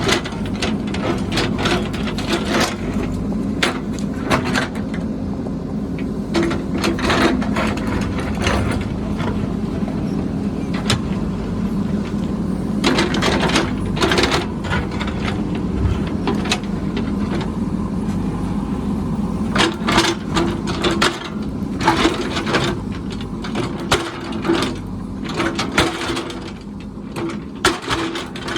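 A construction machine's diesel engine running steadily under a low hum, with frequent irregular sharp clanks and knocks of metal and material.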